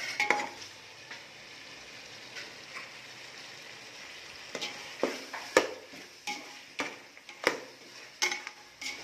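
Pressure-cooked mutton pieces with onions, tomatoes and ginger-garlic paste sizzling in oil in a metal pot. From about halfway, a slotted metal ladle scrapes and knocks against the pot as it stirs, about once or twice a second.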